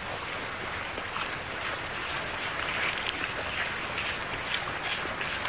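Steady rush of river water with small irregular splashes.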